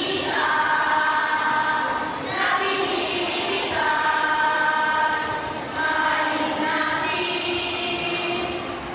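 A speaking choir of schoolchildren chanting in unison, drawing their words out into long held notes in about four phrases with short breaks between.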